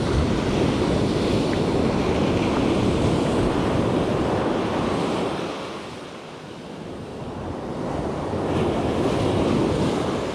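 Ocean surf washing up a beach, with wind buffeting the microphone. The rush of the waves eases about six seconds in, then builds again.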